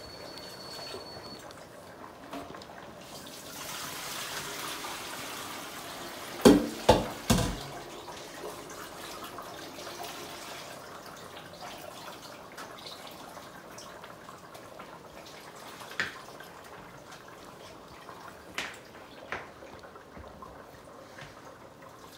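Cocoyam soup simmering in a stainless steel pot on an electric stovetop, a steady low bubbling. Three sharp knocks come about six to seven seconds in, and a few lighter clicks later.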